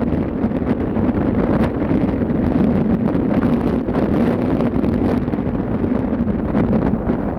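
Steady wind buffeting the microphone on a ship under way, over a continuous low rumble.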